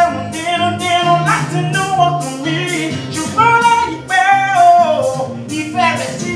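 A man singing into a handheld microphone over a backing track with a steady beat, holding and bending his notes.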